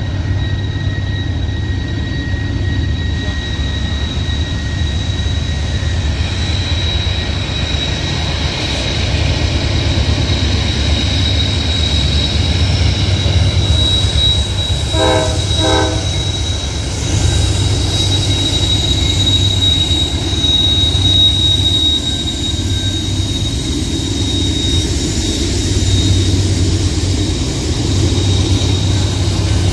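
Norfolk Southern freight train climbing the grade on the Horseshoe Curve: diesel locomotives running with a low, steady rumble and a continuous high wheel squeal from the curve. Two short horn toots about halfway through.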